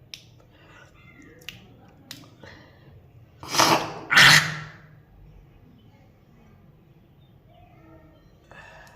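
A woman coughing twice, hard and harsh, about three and a half seconds in, bringing up thick phlegm from a heavy cold. A few small clicks come before the coughs.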